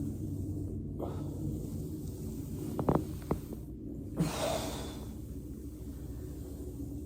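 Joint cracks during foam rolling: two sharp pops close together about three seconds in, and another just after four seconds followed by a short breath-like rush of air, over a steady low hum.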